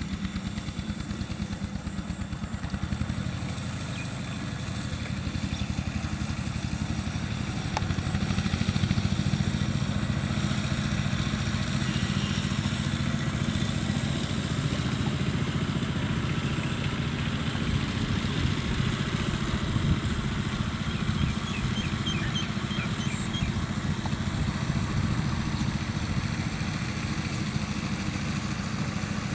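A small engine running steadily at a low, even pulse, with no change in speed.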